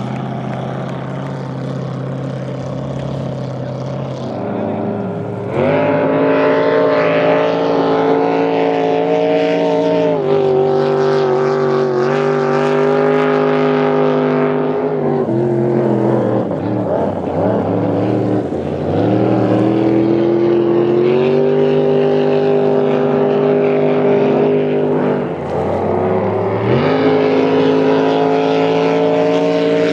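Supercharged engines of hot rod V-drive flat-bottom boats running hard across the water. The engine note jumps up in pitch and loudness about five seconds in, wavers and crosses in the middle as boats pass, dips briefly near the end and climbs again.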